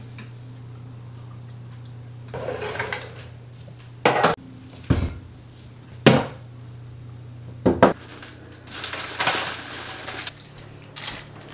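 Kitchen things being handled: about five sharp knocks and clatters of objects and cupboard items, with two spells of rustling, over a steady low hum.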